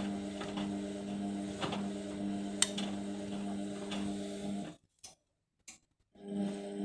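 Indesit washing machine's drum motor running with a steady hum and occasional clicks as it struggles to get up to final spin with an unbalanced load. Nearly five seconds in it falls silent for about a second and a half, then starts up again.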